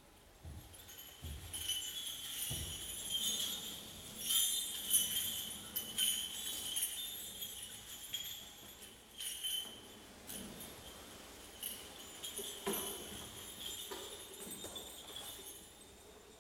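Kagura suzu, the shrine-dance bell trees, jingling softly and unevenly as they are lowered and set down on their wooden stands, with a few dull thuds in the first few seconds.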